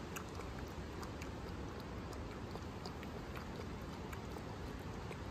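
A puppy lapping water from a small metal bowl: quick, irregular wet clicks and splashes over a steady low background hiss.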